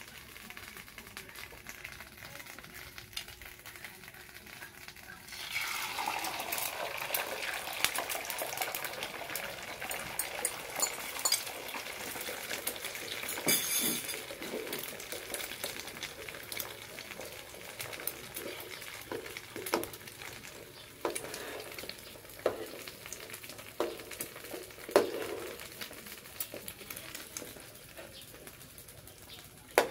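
Beaten egg hitting hot oil in a frying pan, starting a loud sizzle suddenly about five seconds in. The frying goes on steadily and eases a little, with a few sharp clinks of metal utensils against the pan.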